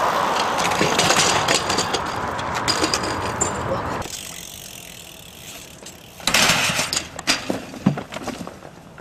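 A steady outdoor rush that cuts off abruptly about four seconds in, then a BMX bike and rider crashing down a flight of concrete steps: a loud burst of clattering impacts a little after six seconds, followed by a few more knocks over the next two seconds.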